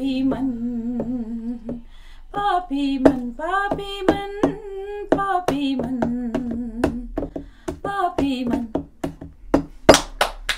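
A female voice singing unaccompanied with long held notes. A few hand claps come near the end.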